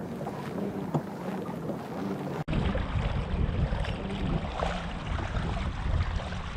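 Wind buffeting the microphone over water lapping against a kayak's hull, with a few small knocks. About two and a half seconds in the sound cuts abruptly, and after that the low wind noise is much louder.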